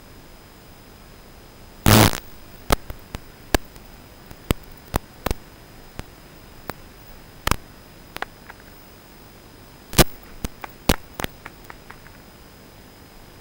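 Steady static hiss with a faint high steady tone, broken by irregular sharp clicks and pops; the loudest is a short burst about two seconds in, with another strong pop about ten seconds in. No propeller whine is heard.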